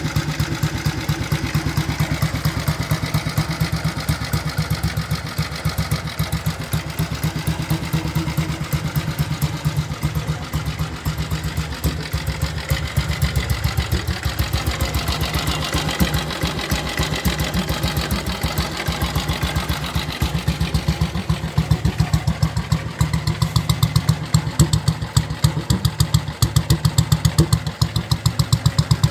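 A 1956 Ariel Colt 200's single-cylinder four-stroke engine idling with an even, rapid exhaust beat, getting a little louder near the end.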